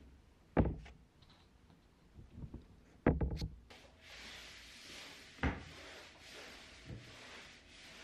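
A few sharp knocks and thumps, then a flat mop swishing steadily over a laminate floor with a couple of softer knocks.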